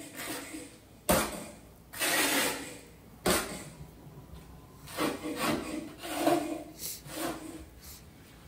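Scraping and rubbing strokes of Kerdi waterproofing membrane being pressed and smoothed into thin-set mortar on a shower wall. There are several separate strokes, one longer scrape about two seconds in and a cluster of shorter ones in the second half.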